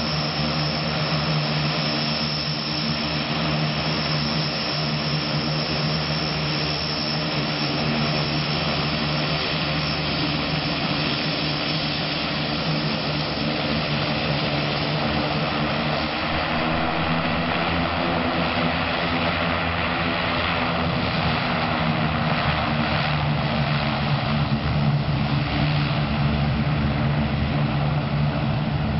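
The twin turboprop engines and propellers of an Antonov airliner running steadily at taxi power as it rolls past, with a steady propeller drone over turbine hiss. The sound swells a little after the middle.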